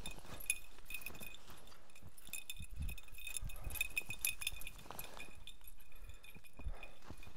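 Footsteps crunching and thudding through deep snow as a dog bounds and a person walks, with a light high clinking in the first half.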